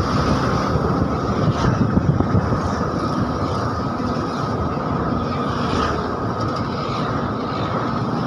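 Cabin noise of a moving bus: engine and road noise, with the body rattling and a few louder jolts about two seconds in.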